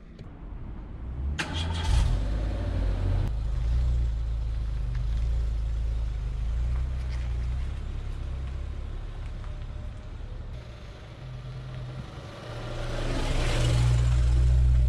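Renault car's engine starting, with a short burst about a second and a half in, then running steadily. Near the end the car rolls over and past the camera, and its engine and tyre noise swell.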